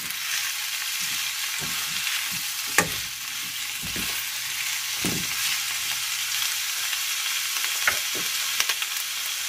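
Broccoli, carrots and onion sizzling in a hot wok as they are stir-fried, a steady hiss with a few short scrapes and clicks of the spatula against the pan.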